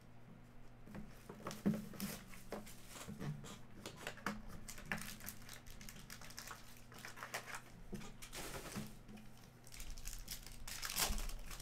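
Foil basketball-card pack wrappers crinkling and rustling as packs are handled and torn open by hand, with many small scattered crackles and a louder tear near the end.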